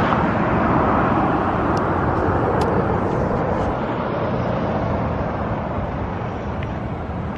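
Jet airliner passing low overhead: a steady rushing jet noise that slowly fades.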